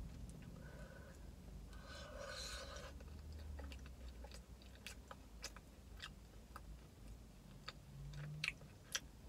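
Faint chewing of a mouthful of soft baked beans, with scattered small wet mouth clicks.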